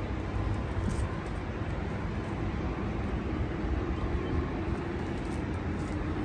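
Steady outdoor background noise, a low rumble with an even hiss above it, with no distinct events.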